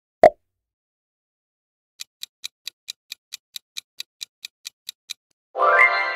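Quiz countdown sound effects: one short pop about a quarter second in, then clock-style ticks about four and a half a second for three seconds, then a bright chime near the end that rings on, signalling the answer reveal.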